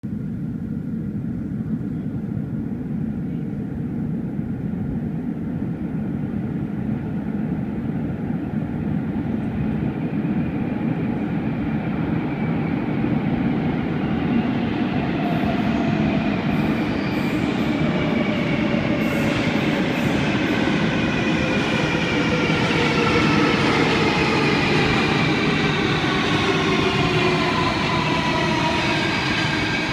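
Third-generation Athens Metro electric train approaching through the tunnel and slowing into the station. A low rumble grows louder as it nears, with a whine in several tones that falls steadily in pitch as it brakes.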